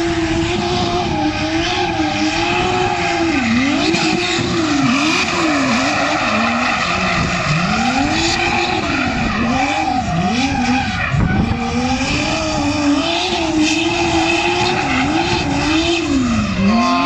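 Toyota Supra drift car's engine revving hard, its pitch falling and climbing again many times as the throttle is worked through the drift, over continuous tyre squeal and skidding.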